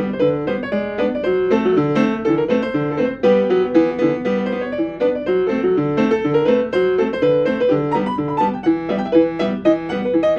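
Piano tune played at an even pace: a bass note repeating about twice a second under chords and a moving melody.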